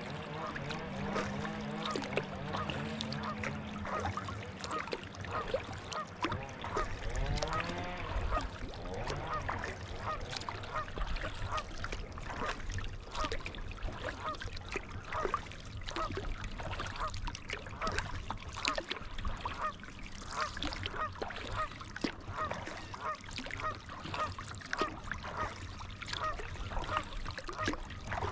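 Geese honking, many short calls in quick succession, agitated by the kayak coming near them.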